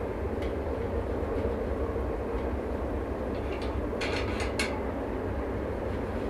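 Steady low rumble of background hum, with a quick run of light sharp clicks about four seconds in.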